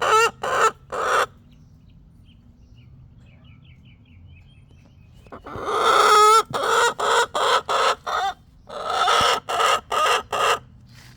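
Chicken cackling loudly: runs of short, harsh clucks broken by two long drawn-out squawks, after a pause of a few seconds.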